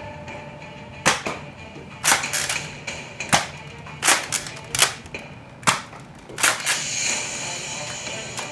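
Nerf foam-dart blasters firing and being cocked: a dozen or so sharp plastic snaps and clacks, several coming in quick pairs.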